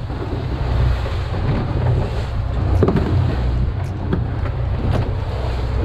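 Wind buffeting the microphone on a fishing boat at sea, over a steady low rumble of boat and water noise, with a few light knocks.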